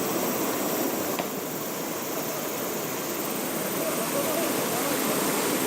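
Steady rush of flowing mountain-stream water, an even noise that holds level throughout, with faint voices underneath.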